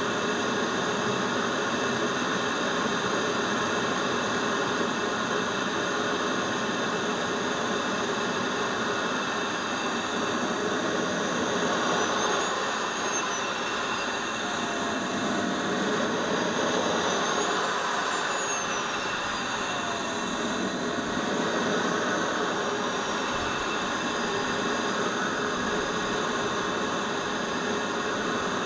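Radio-controlled model jet's engine running on the ground with a steady rushing sound and a high whine. Around the middle the whine slides up and down a few times.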